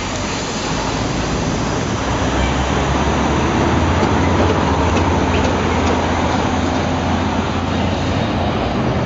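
Steady city street noise of traffic, with a deeper low engine rumble from about two to eight seconds in.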